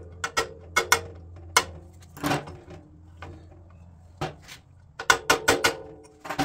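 Small ball-peen hammer tapping a punch against the rack-and-pinion gear of a Delta toolmaker surface grinder: sharp metallic taps with a short ring. A quick run of taps, a pause of about two seconds, then another quick run near the end.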